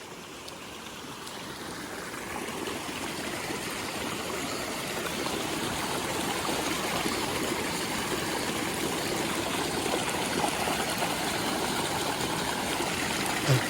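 Rain-swollen mountain stream running fast over small waterfalls: a steady rush of water that grows gradually louder over the first several seconds, then holds.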